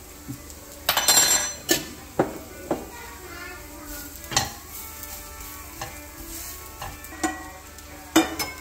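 Wooden spatula stirring and scraping in a nonstick frying pan over a light sizzle of frying onions and coconut, with several sharp knocks against the pan and a louder clatter about a second in.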